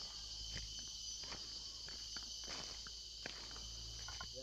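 Steady high-pitched chorus of rainforest insects, with irregular footsteps on the forest floor.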